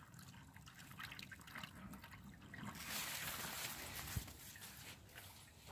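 Faint trickling of water leaking somewhere beneath a flax bush, which the owner takes for an underground broken pipe, since the nearby tap is turned off.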